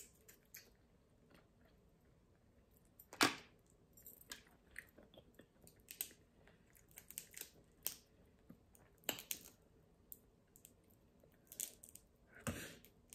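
Close-miked chewing of steamed blue crab meat, mixed with soft crackles and clicks of crab shell being picked apart by hand. There are sharper cracks about three seconds in, around nine seconds, and near the end.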